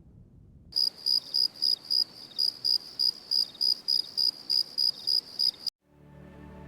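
Cricket chirping in an even, high-pitched pulse of about four chirps a second, which starts and then cuts off abruptly.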